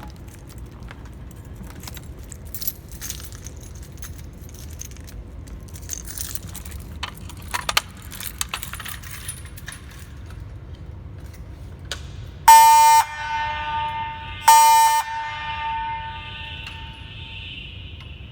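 Faint clicks and rattles, then a fire alarm horn sounds two short, loud blasts about two seconds apart, each lingering as an echo for a second or so after it stops.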